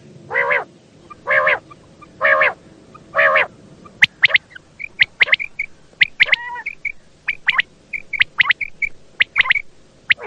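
Quail calling: four pitched calls about a second apart, then from about four seconds in a quick series of short, sharp, high notes in rapid groups.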